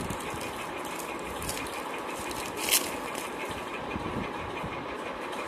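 Steady mechanical background rumble and hiss, like a running engine, with one brief sharp sound a little before the middle.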